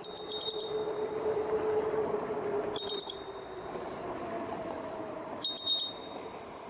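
Handlebar bicycle bell rung three times, about three seconds apart, each a quick ring-ring of several rapid strikes that rings on briefly. Underneath, the Radmini e-bike's steady motor hum and tyre and wind noise on the path.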